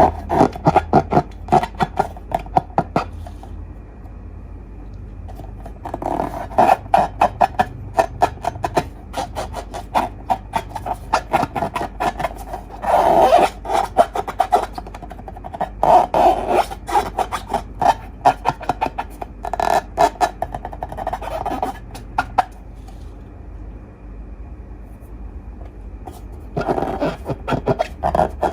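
Slime being squeezed and worked by hand, crackling with rapid small pops of trapped air in bursts of a few seconds with short pauses between.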